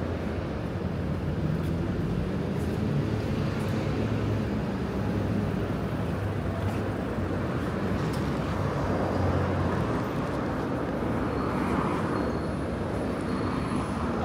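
Street traffic: vehicle engines running and passing with a steady low rumble under general city noise.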